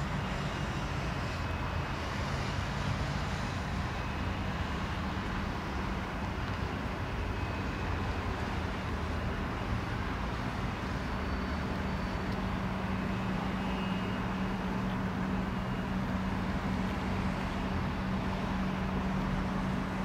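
Embraer Legacy 600 business jet's two Rolls-Royce AE 3007 turbofan engines running at taxi power as the aircraft taxis after landing: a steady, even noise with a constant low hum.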